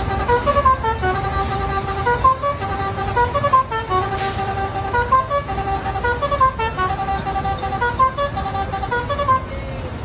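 Lorry's telolet musical air horn playing a tune of held notes that step up and down, stopping about nine and a half seconds in, over a low rumble of idling truck engines.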